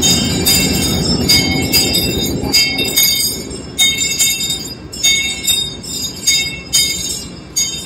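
Sleigh bells jingling in repeated shakes, their high ringing tones hanging between strikes, over a low rumble that fades after the first few seconds.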